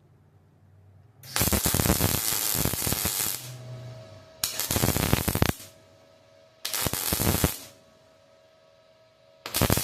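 MIG welder with shielding gas laying short beads, the arc crackling and sputtering in four separate runs: one of about two seconds, two of about a second, and a fourth starting near the end. The welds are filling a crack in thin steel.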